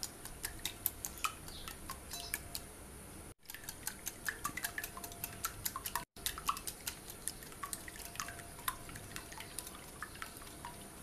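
Wire whisk beating raw eggs in a glass bowl: rapid, irregular light clicking of the metal whisk against the glass, cut off briefly twice.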